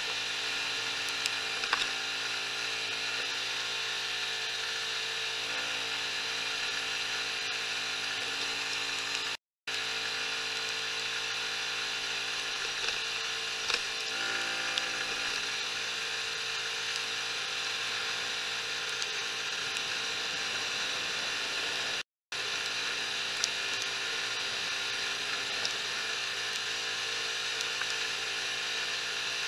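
Mash Fifty's small 50 cc single-cylinder engine running at a steady, fairly high engine speed while the motorcycle cruises. The sound cuts out completely for a moment twice, at about ten and twenty-two seconds in.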